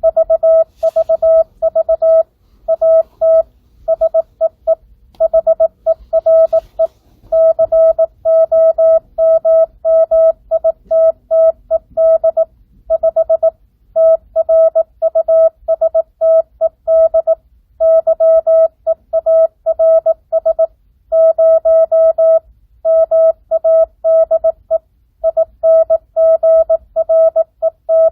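Morse code practice tone sending at 18 words per minute with standard (non-Farnsworth) spacing: one steady pitch keyed on and off in dots and dashes, with short gaps between characters and longer ones between words.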